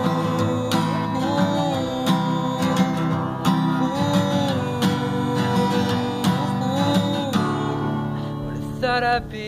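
Acoustic guitar strummed steadily under a man's voice singing long held notes. Near the end the strumming thins to ringing chords, and the voice holds one wavering note.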